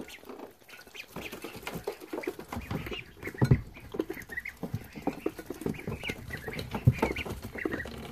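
Ducklings eating peas from a shallow dish, their bills dabbling and knocking against the dish in quick, irregular clicks, with a few short peeps.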